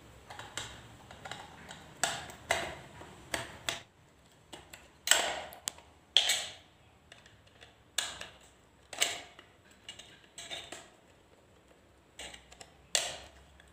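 Small screwdriver turning the height-adjustment screw on a metal recessed downlight housing. Irregular clicks and light metallic knocks come every half-second to a second as the screw and housing are worked.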